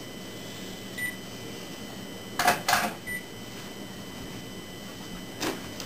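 Two short high electronic beeps about two seconds apart, with two sharp clicks in quick succession between them and a softer knock near the end.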